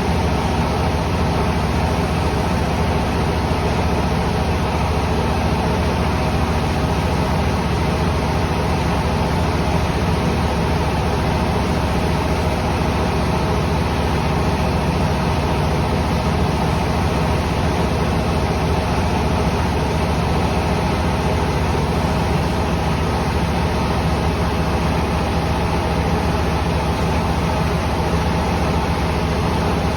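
Rice mill machinery running steadily, a constant loud mechanical drone with a faint steady hum in it.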